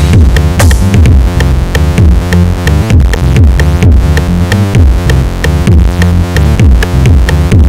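Electronic background music with a steady drum-machine beat and repeated falling bass sweeps.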